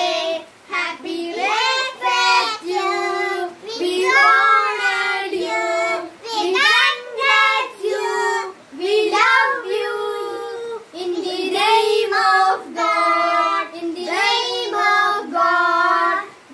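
Two boys and a young girl singing a song together, voices only, in phrases separated by short breaths.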